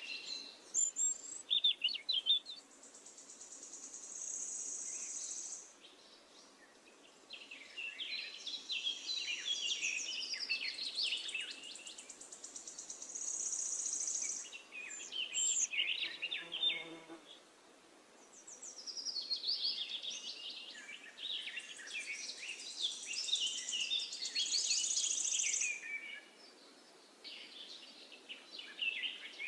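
Bird song: long phrases of rapid chirps and high, sustained trills, separated by short pauses.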